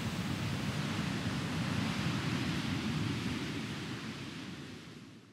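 Ocean surf washing on a beach, a steady rushing noise that fades out near the end.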